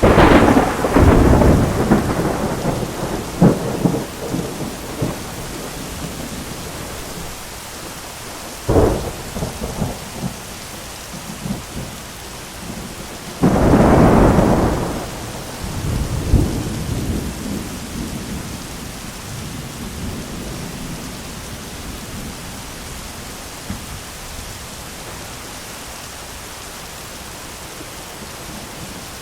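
Thunderstorm: steady rain throughout, with three thunderclaps. A loud one at the start rumbles for a few seconds, a short sharp clap comes about nine seconds in, and a second loud one about fourteen seconds in rumbles off over about three seconds. After that only the rain goes on.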